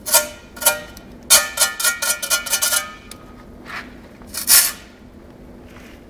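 Steel brick trowel scraping and tapping against brick and mortar, its blade ringing with each stroke. There is a stroke at the start and another just after, a quick run of strokes from about one to three seconds in, then two more later on.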